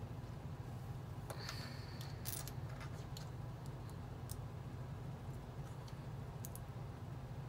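Plastic LEGO pieces clicking as they are handled and pressed together: scattered sharp clicks, bunched between about one and two and a half seconds in, over a steady low hum.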